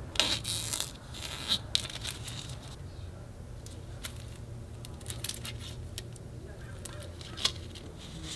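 Clear plastic packaging crinkling and rustling as a luggage tag is unwrapped and handled, then scattered light clicks and taps from the tag and its metal strap buckle, over a steady low hum.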